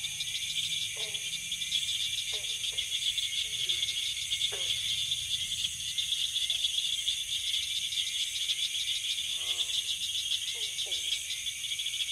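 Nature ambience of a steady cricket chorus, a fast high trilling. Short falling animal calls come about once a second over it, with one longer pulsed call about two-thirds of the way in.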